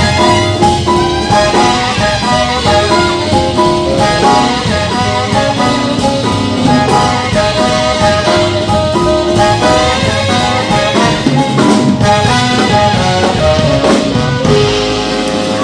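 Live swing band playing an instrumental passage of a jump-blues number, horns carrying quick riffing lines over a steady rhythm section.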